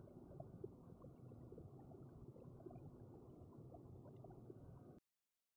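Near silence: a faint low background hum with a few tiny ticks, cutting off to dead silence near the end.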